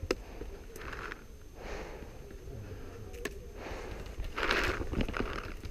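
Close-up breathing, a few short hissy breaths in and out, with a couple of faint clicks.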